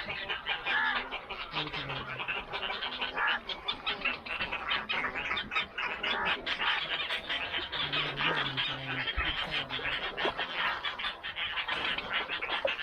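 Many waterbirds calling at once in a nesting colony: a dense, constant chatter of overlapping calls.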